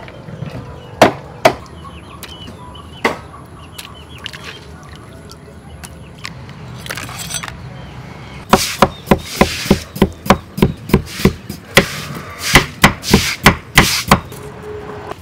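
Kitchen knife chopping on a wooden chopping board: three separate chops in the first few seconds, then a quick run of cuts, about three or four a second, as a carrot is sliced.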